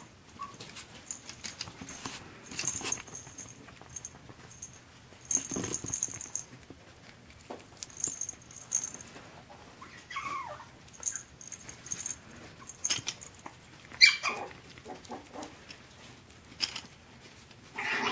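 Chihuahua puppies playing, with scuffling and rustling on fleece bedding, a short falling whine about ten seconds in and a sharp yip about fourteen seconds in.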